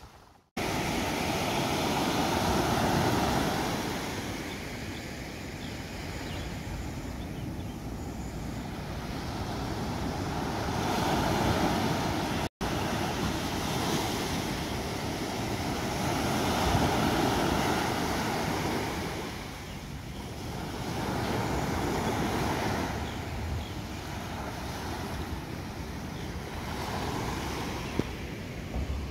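Waves breaking and washing up a sandy beach, the surf swelling and fading every few seconds, with wind rumbling on the microphone.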